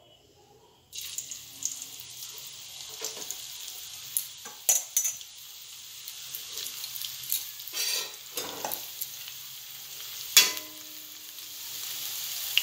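Batter-coated okra strips hit hot oil in a kadhai about a second in and start sizzling, a steady deep-frying hiss that grows a little louder toward the end. Several sharp clinks of a metal spoon stirring against the pan sound over it, the loudest a little after ten seconds.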